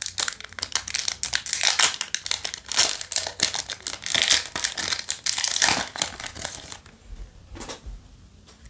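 Foil wrapper of a Yu-Gi-Oh! Duel Overload booster pack crinkling and tearing as it is ripped open by hand, a dense crackle that dies away about two-thirds of the way through.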